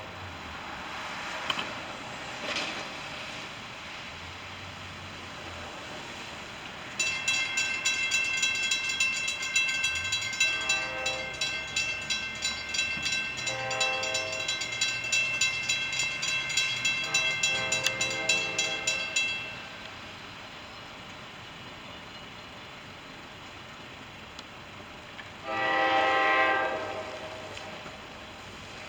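NJ Transit F40PH-2CAT diesel locomotive sounding its horn four times, the last blast the loudest, near the end. A bell rings rapidly through the middle, under the first three blasts, and stops about two-thirds of the way in.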